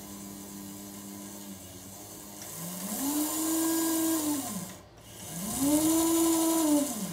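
Motor of a Tri-ang/Hornby Hall Class model locomotive whirring through its worm drive, with the chassis upside down and the wheels spinning free. It runs low and steady at first, then is run up and back down twice, the whine rising, holding and falling each time, with a brief stop between. This is a just-repaired motor running well.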